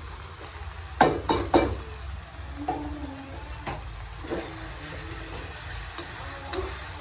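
Food sizzling in a cooking pan, with a utensil knocking against the pan three times in quick succession about a second in.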